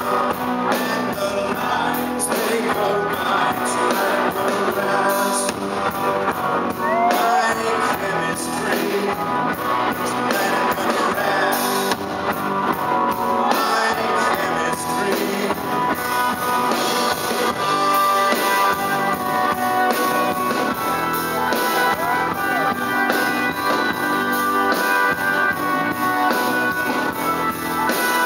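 Live rock band playing through a concert PA, heard from within the crowd: electric guitars, bass, drums and a singing voice, loud and continuous.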